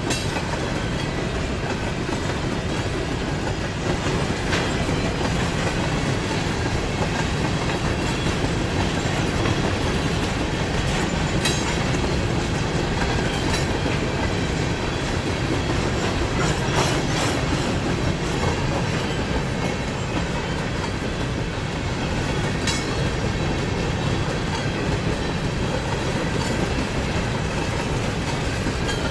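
Norfolk Southern freight train of covered hopper cars rolling past: a steady rumble of steel wheels on the rails with clickety-clack over the joints. A few sharp clicks stand out along the way.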